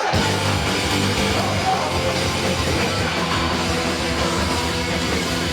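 Loud rock music with distorted electric guitar, dense and driving.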